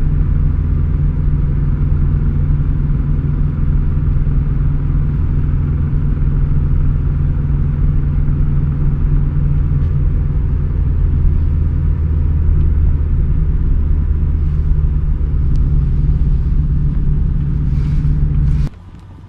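A motor vehicle's engine running steadily, a low drone that cuts off suddenly near the end.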